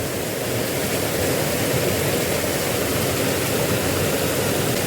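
Steady rush of a small river's water flowing.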